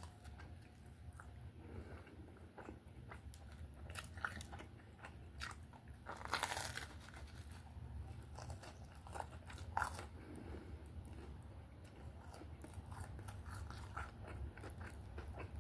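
Close-up biting and chewing of a toasted Reuben sandwich, the crisp toasted bread crunching in many small crackles. Louder crunches come about six seconds in and again near ten seconds, over a steady low hum.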